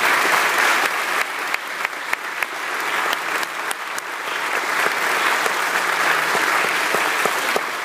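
Congregation applauding: many people clapping, a dense, loud patter of claps that eases a little partway through and builds again.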